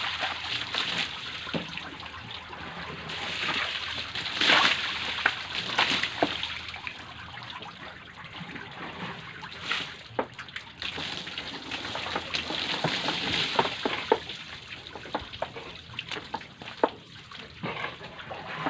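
Water splashing and trickling onto wooden pallet boards and wet ground, swelling louder about four and a half seconds in and again around ten seconds, with scattered sharp knocks.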